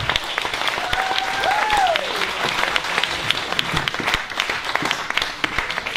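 Audience applauding, with one long cheer from the crowd that rises and then falls away about a second in.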